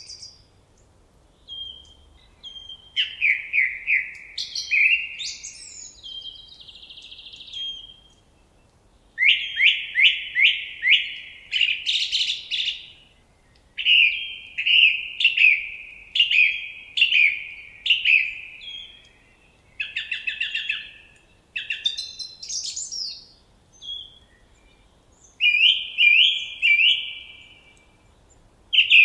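Songbird song: repeated phrases of quick, downward-sweeping whistled notes, each phrase a second or two long, with short pauses between them.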